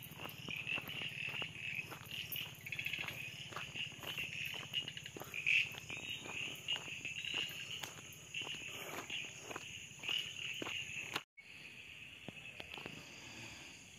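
Evening chorus of crickets and other insects trilling steadily, with frogs calling underneath and scattered small clicks. The chorus breaks off for an instant about eleven seconds in and comes back fainter.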